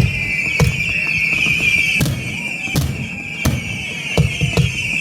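Fireworks display: aerial shells bursting, about seven bangs at uneven intervals, over a steady high-pitched tone.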